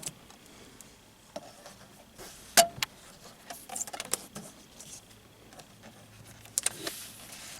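Rubber bands being pulled off a car sun visor: a few sharp snaps and small handling clicks, the loudest about two and a half seconds in.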